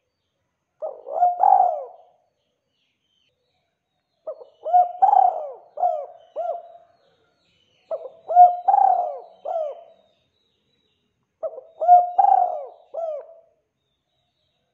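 Spotted dove cooing: four phrases a few seconds apart, each a short run of hooting notes with two or three quick coos trailing after the main note.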